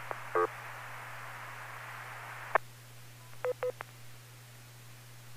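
Short touch-tone (DTMF) beeps over a ham radio receiver, the control tones used to operate a remote base station. A steady radio hiss cuts off with a click, the squelch closing, about two and a half seconds in, and three quick beeps follow a second later.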